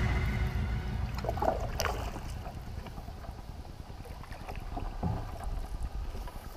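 Canoe moving through calm water, with a few soft paddle splashes and water along the hull, over a low wind rumble on the microphone.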